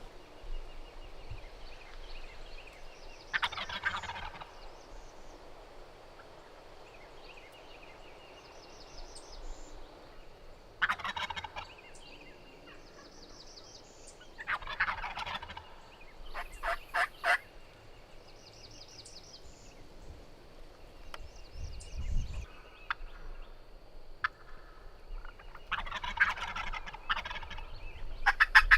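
Osceola wild turkeys, a flock of jakes on the roost, gobbling repeatedly: short rattling gobbles several seconds apart, with a cluster of overlapping gobbles near the end.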